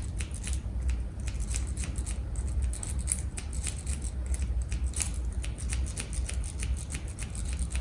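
Bare Bones City Rake jiggled in and out of a Lockwood 225 wafer padlock held under a Z-style tensioner: quick, irregular light metallic clicks of the rake over the wafers, several a second, as the lock is raked open.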